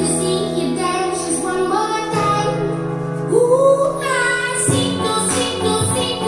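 A recorded song playing, with a singer's voice over the music.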